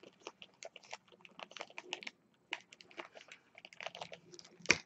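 Packaging crinkling and clicking in the hands as a rolled diamond-painting canvas is unwrapped: many small irregular crackles, with a sharper, louder one near the end.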